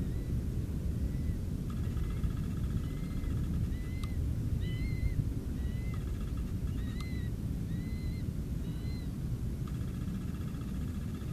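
Open-air ambience with a steady low wind rumble on the microphone, and a bird repeating short rising-and-falling whistled notes about once a second, with a few buzzy trills between them.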